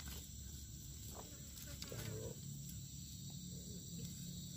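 Faint, steady high-pitched insect chorus of crickets, with a few soft clicks.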